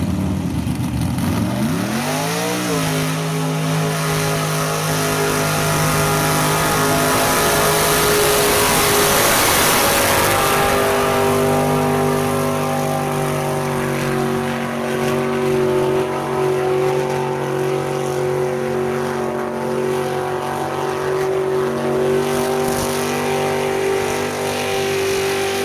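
Mud-bog truck engine revving up hard, then held at high, nearly steady revs for a long stretch as the truck churns through a deep mud pit. Midway a loud rush of spraying mud and water rises over the engine.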